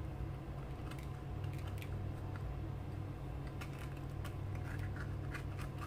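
Light, scattered clicks and taps of a plastic measuring spoon against a container and a plastic mixing bowl as baking powder is scooped onto flour, over a steady low hum.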